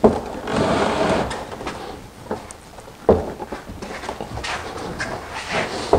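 A heavy air conditioner unit being shoved and slid in a wall opening: a sharp knock, a long scrape, another knock about three seconds in, then more scraping and a knock near the end.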